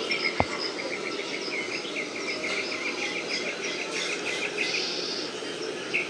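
Rapid run of short, high chirps, about four a second, evenly spaced, stopping about five seconds in, over steady outdoor background noise. A sharp click about half a second in.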